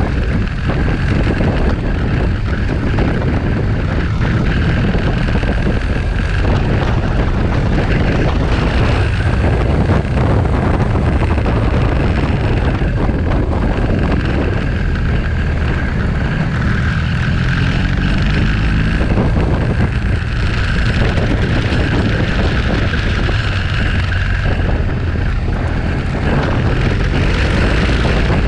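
Motorcycle riding at road speed: wind noise on the bike-mounted microphone over the steady running of the motorcycle's engine.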